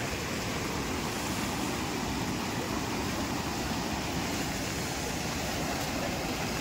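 Rushing floodwater of a rain-swollen, muddy hill stream: a steady, even rush of water with no let-up.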